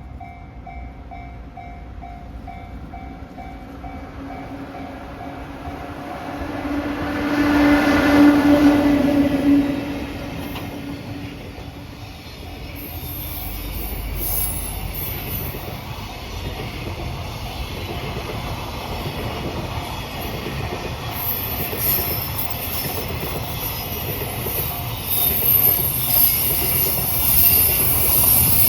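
A level-crossing warning bell rings in a steady repeated pattern. Then an EF66 electric locomotive passes with a long steady horn blast about eight seconds in. The freight wagons follow, rolling by with wheel clatter and a high-pitched wheel squeal that grows louder near the end.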